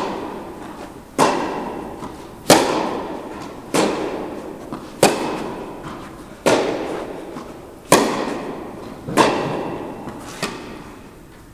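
Tennis balls struck by racquets in a baseline rally: a sharp pop about every second and a quarter, eight in all, each ringing out in the long echo of an indoor tennis hall.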